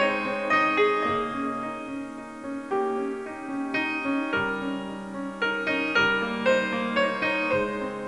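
Background instrumental music: a keyboard melody over sustained low notes that change every few seconds.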